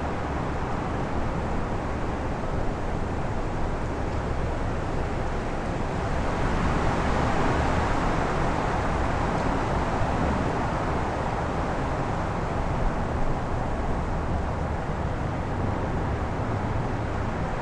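Outdoor ambience on a very windy day: a steady rush of wind noise with a deep low rumble, swelling louder for a few seconds in the middle as a gust builds and then easing back.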